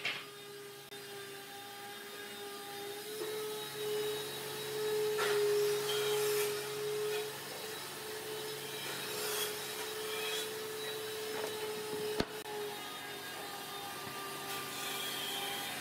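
Pencil scratching in short strokes as it traces along the edge of a paper template on pine boards, over a steady background hum; one sharp click about twelve seconds in.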